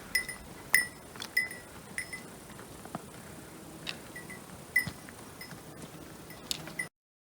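Repeated short metallic clinks, each with a brief bell-like ring, at an uneven walking pace of two or three a second: hiking gear knocking on each step. The sound cuts off abruptly near the end.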